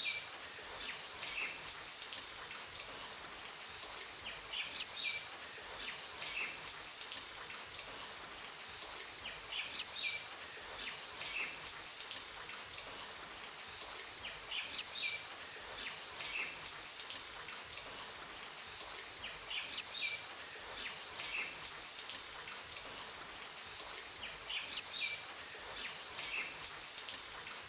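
Nature ambience of steady rain hiss with small birds chirping over it, the same cluster of chirps coming back about every five seconds, as in a looped recording.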